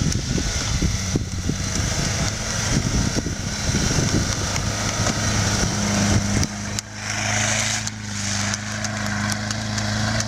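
Nissan Pathfinder SUV engine running steadily under load as it ploughs through deep snow off-road. The engine note dips briefly and shifts about two-thirds of the way through, then holds steady again.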